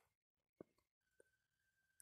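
Near silence, with a few faint clicks and a faint steady high tone starting about a second in.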